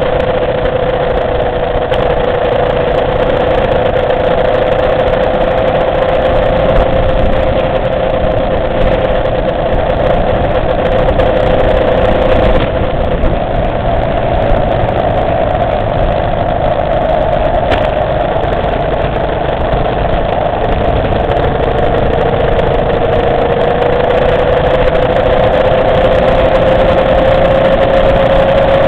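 Motorcycle engine running at a steady cruise, heard from a bike-mounted camera, over constant wind and road noise. The engine note drops slightly about two-thirds of the way through, then climbs again near the end.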